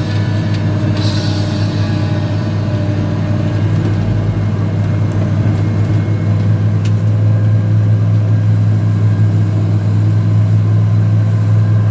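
Excavator engine running steadily with a low drone that grows a little louder in the second half, with music faintly underneath.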